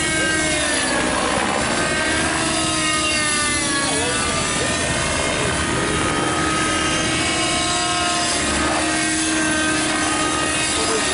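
Compass 3D Plus nitro RC helicopter in hard 3D flight, its glow engine and rotors running continuously. The engine note dips and climbs again several times as the load changes through the manoeuvres.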